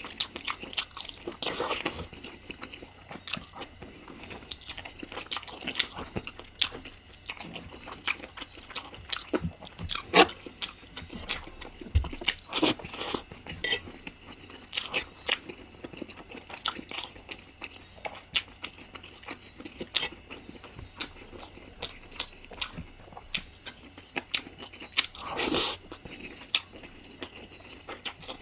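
Close-miked eating sounds of a person chewing and biting into chicken curry, with many sharp, irregular crunchy clicks and a louder burst about three-quarters of the way through.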